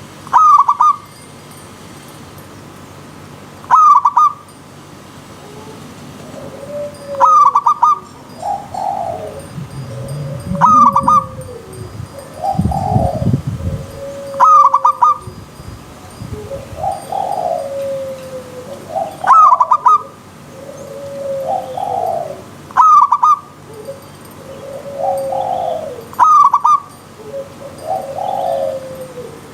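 Zebra doves (perkutut) cooing: a loud call about every three and a half seconds, with softer falling coos in between from about six seconds in, over the steady hiss of a river stream.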